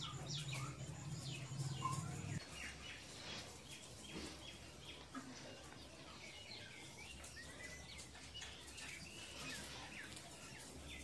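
Small birds chirping in the background: many short, high chirps scattered throughout, faint. A low steady hum runs underneath and stops about two seconds in.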